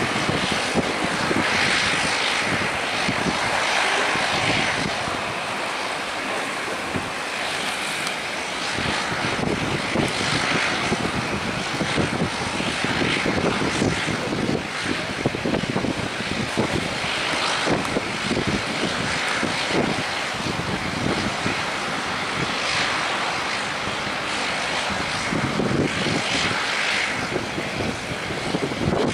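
Boeing 777-200's twin jet engines roaring during the landing roll after touchdown, a steady broad roar that swells and dips unevenly.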